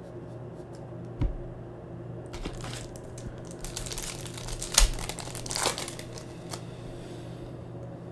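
Foil wrapper of a 2019-20 Panini Prizm basketball retail pack crinkling and tearing as it is handled and ripped open, sharpest in the middle. A single dull thump comes about a second in.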